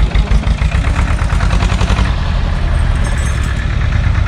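Tractor diesel engine idling with a steady, fast low pulsing beat.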